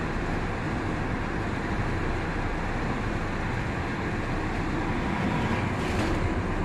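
Steady running noise of a water refilling station's multi-nozzle bottle-filling machine, with a brief hiss near the end.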